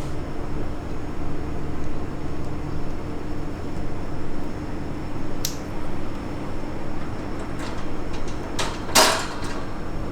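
Parts of a Vision bird cage being clipped together: a sharp click partway through, then a few lighter clicks and a louder rough snap near the end. A steady hum runs underneath.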